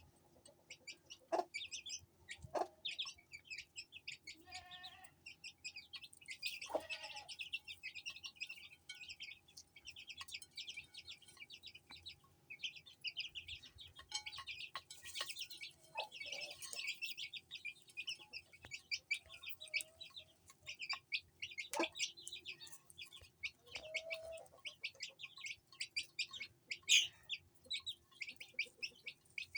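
Baby chicks peeping constantly in quick, high-pitched cheeps, with an Aseel hen's occasional lower clucks among them. A few sharp clicks stand out.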